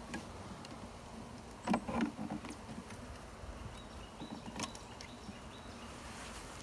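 Faint steady hum of a package of honey bees. About two seconds in comes a short bout of scraping and rustling, the loudest sound here, followed by a few lighter clicks.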